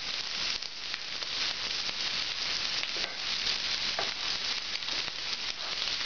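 Shrimp searing in a very hot cast iron pan, preheated to about 580 °F (350 °C). A steady sizzle with faint fine crackling.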